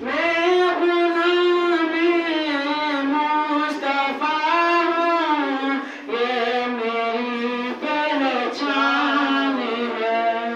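A boy chanting a devotional poem (naat) solo into a microphone, in a slow melody of long held notes, with short pauses between phrases about six and eight seconds in.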